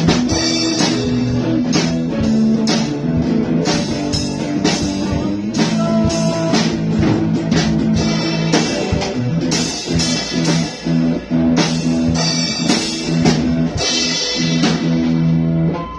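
Rock music from a band: guitar chords over bass, with a drum kit keeping the beat.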